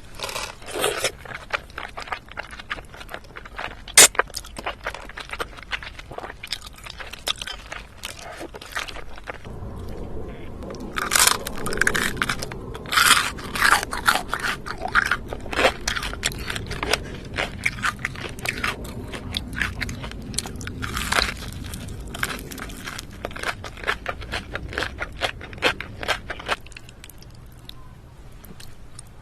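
Close-miked eating of crunchy food: a steady run of crisp crunches as it is bitten and chewed. The crunching comes thick and fast from about ten seconds in and thins out near the end.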